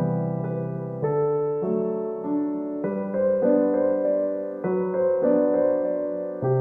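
Background piano music: soft keyboard chords changing about once a second.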